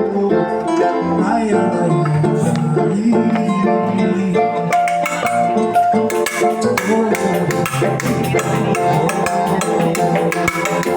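Samba music playing with plucked strings; percussion comes in about five seconds in.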